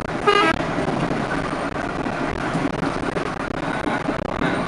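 Steady noise of passing road traffic, broken about a third of a second in by a short toot of a bus horn. Right at the end a multi-tone bus horn starts up with a rising note.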